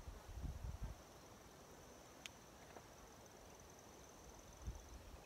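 Faint, steady high-pitched trill of a cricket. A few low thumps in the first second and a single sharp click a little past two seconds.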